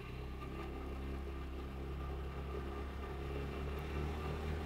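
Vespa GTS 300 Super Sport scooter's single-cylinder engine running under way, picked up close to the engine from under the seat, a steady low hum that grows slowly louder.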